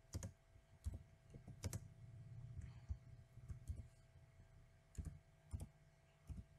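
Computer keyboard typing: faint, irregular keystroke clicks spaced about half a second to a second apart.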